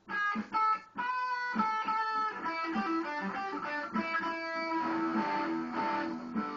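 Solo electric guitar playing a riff: a couple of short clipped stabs with brief silences in the first second, then ringing single notes and steadier rhythmic playing.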